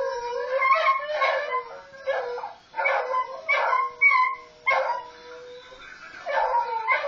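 Several beagles howling and baying in a string of drawn-out calls, played back from a video through a small speaker, with a short lull near the end.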